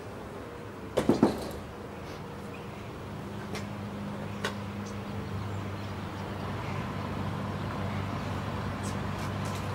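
Three quick knocks about a second in, followed by a steady low hum that slowly grows louder, with a few faint clicks.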